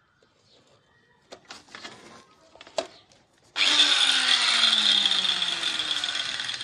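Handheld electric tile cutter with a diamond blade switched on about three and a half seconds in and running free at full speed with a steady high whine. Before that come a few faint knocks from the tool being handled.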